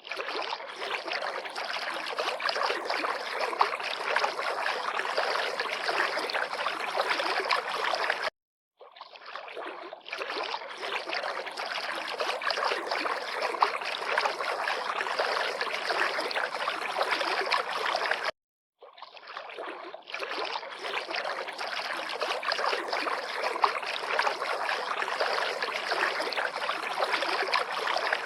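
River water lapping and splashing, an even wash of small splashes. It is cut by a brief silence twice, about ten seconds apart, each time fading straight back in.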